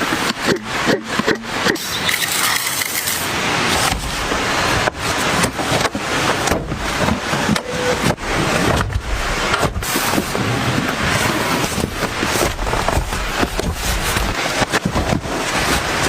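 Heavy rain making a loud, steady rush of noise, broken by irregular rustling and crackling.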